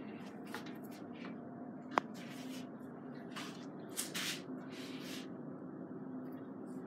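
Kitchen knife slicing and scraping the peel off dragon fruit pieces on a wooden cutting board: a sharp tap about two seconds in, then four short scraping strokes.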